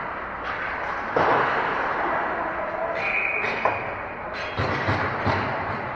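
Ice hockey play on a rink: a string of sharp knocks and thuds from sticks, puck and bodies hitting the ice and boards, irregularly spaced and bunched together about three to five seconds in, over a steady wash of arena noise.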